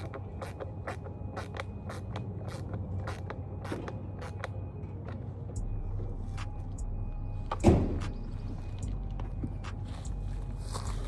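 Hand work on a car: a string of light clicks and taps, with one louder knock about three-quarters of the way through, over a low steady hum.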